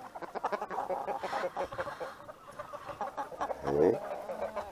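A flock of chickens, largely rescued roosters, clucking and calling while waiting to be fed. One louder call rises in pitch near the end.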